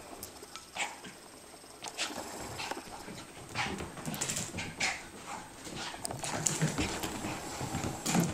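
A dog moving about, with irregular short scuffles and knocks.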